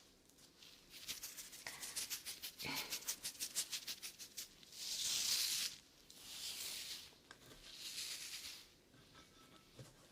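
ASMR trigger sounds close to the microphone: a quick run of crisp ticks, several a second, for a few seconds, then three long shushing swishes about a second each, like a shaker or a brush.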